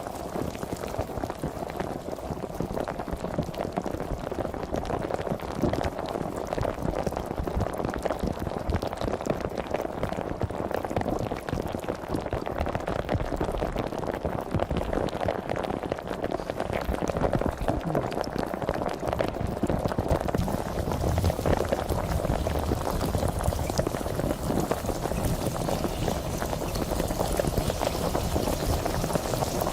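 Sparkling water fizzing: a dense, steady crackle of countless tiny bubbles popping at the surface.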